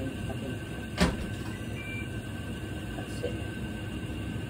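Steady low rumble from a gas stove as a bamboo-shoot sauté cooks in a frying pan, with one sharp knock about a second in from the wooden stirring utensil striking the pan.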